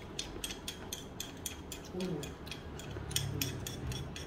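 Close-up mouth sounds of someone eating: a quick run of small wet clicks and smacks, about four a second.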